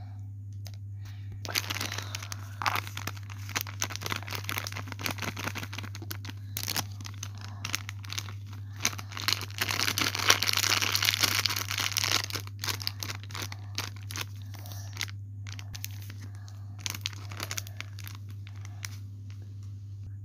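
Plastic packaging crinkling and rustling as it is handled. The crinkling is dense from about a second and a half in until about thirteen seconds, loudest a little past the middle, then comes in a few scattered bursts. A steady low hum runs underneath.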